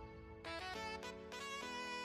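Background music: a slow instrumental melody of held notes.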